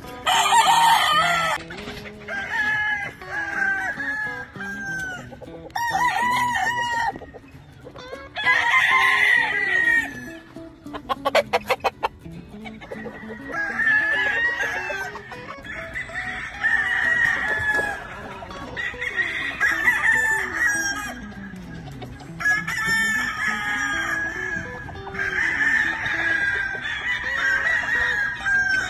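Gamefowl roosters crowing again and again, about nine crows one after another every two to three seconds. There is a quick series of sharp taps near the middle.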